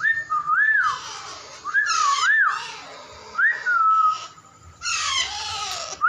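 Harsh calls from a young Alexandrine parakeet, with clear whistles in between that rise and fall in pitch, several in a row.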